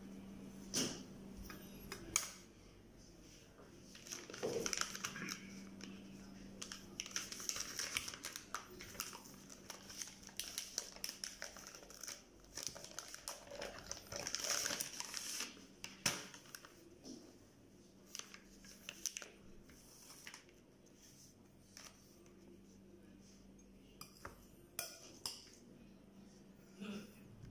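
Hands rolling lumpia wrappers on a plastic-wrapped pack: irregular crinkling and rustling of plastic and wrapper sheets, with scattered light taps and clicks against the tray.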